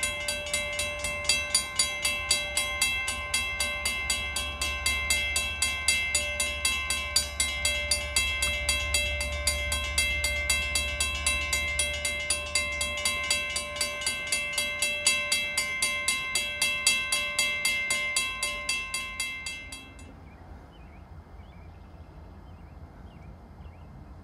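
Railroad grade-crossing warning bell ringing in a fast, even rhythm of strikes. It stops suddenly about twenty seconds in. A low rumble runs underneath in the first half.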